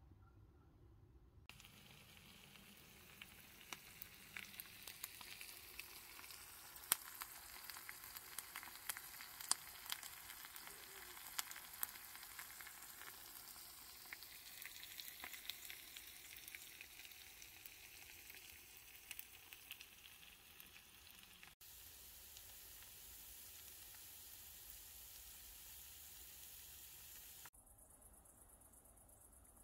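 Food sizzling in a small pan, with a steady hiss and frequent sharp pops and crackles. About three-quarters of the way through, the sizzle turns even and steady, then it cuts away near the end.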